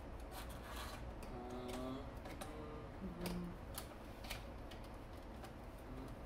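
Plastic parts of a cordless stick vacuum clicking and knocking as the wand is fitted into the hand unit and the floor head: scattered sharp clicks, a few loud, most light.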